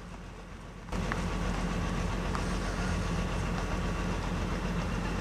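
Heavy diesel engine running steadily as the vehicle moves along the road, a low even hum that jumps suddenly louder about a second in.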